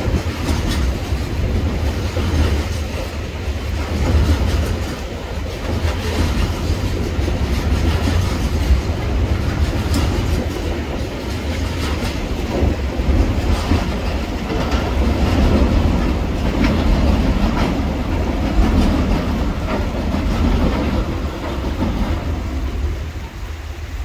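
Freight train container wagons rolling across a concrete rail bridge: a steady low rumble with scattered wheel clicks, fading near the end as the last wagon passes.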